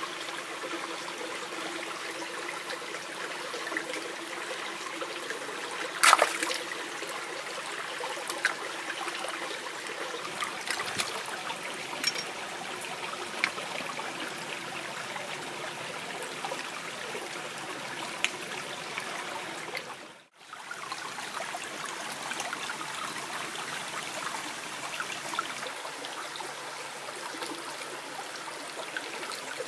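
Shallow stream trickling steadily over rocks, with scattered clicks and knocks of oyster shells being handled in the water, the sharpest about six seconds in. The sound drops out for a moment about twenty seconds in.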